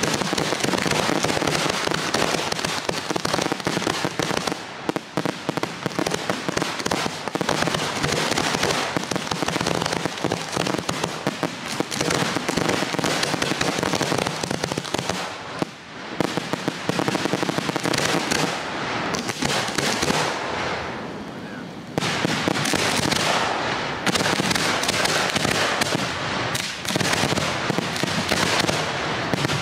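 Aerial firework shells bursting in rapid succession, a dense barrage of bangs and crackling. It thins and fades for a couple of seconds about two-thirds of the way through, then the barrage resumes suddenly.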